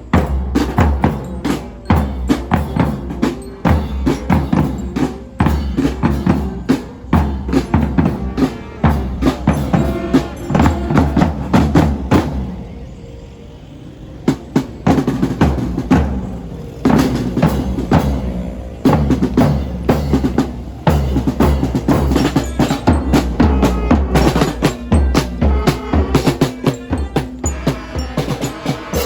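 Loud drum-led percussion music with rapid, closely packed strikes of deep and sharper drums. The drumming eases off briefly in the middle, then resumes just as dense.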